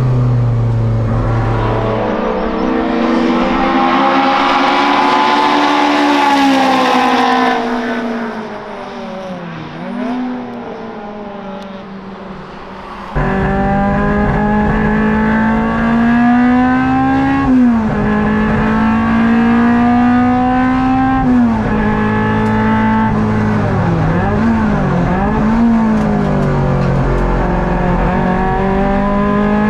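Toyota Starlet KP61 race car's engine revving hard through the gears, heard inside the cockpit. The pitch climbs and drops sharply at each upshift, with quick dips and rises in between. About a third of the way in it goes quieter for a few seconds, then comes back abruptly at full volume.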